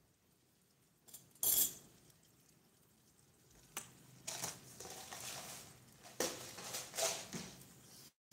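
Miniature pot of beef broth simmering over a tiny burner: irregular bubbling pops and crackles, the loudest about a second and a half in and a busier stretch in the second half.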